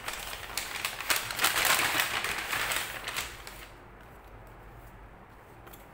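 Paper rustling and crinkling as a kraft-paper mailer and its printed bill are handled and a small boxed charger is slid out, dying away about two-thirds of the way through.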